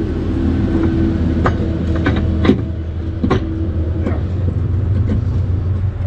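An engine running steadily, with several sharp metallic clanks and knocks as a tight lever chain binder and its chain are worked loose from a flatbed load.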